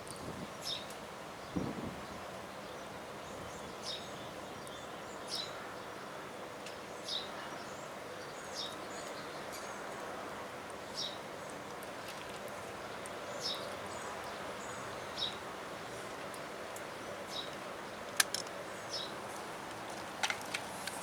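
A bird giving short high chirps over and over, about one every one and a half to two seconds, over a steady outdoor background hiss. A few sharp clicks come near the end.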